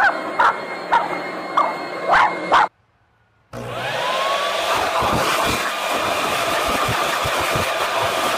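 Leaf blower running while a dog barks sharply at it, several barks in the first three seconds. After a second's break, a leaf blower spins up with a rising whine and runs steadily at full blast.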